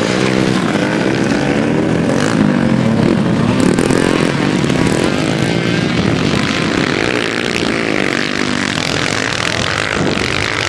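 Several enduro dirt-bike engines running hard as riders race past on a dirt track, their pitch rising and falling as they rev, shift and pass.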